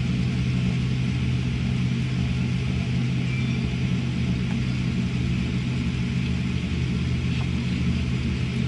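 Steady cabin noise inside a Boeing 787-9 airliner taxiing after landing: a constant low engine and air-conditioning hum under an even rush of air.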